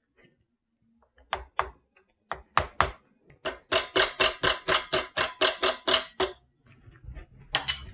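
Hammer tapping the inner joint assembly onto an ATV CV axle shaft, metal on metal with a short ring after each blow. A few spaced blows come first, then a quick run of about four blows a second for roughly three seconds, then two more near the end.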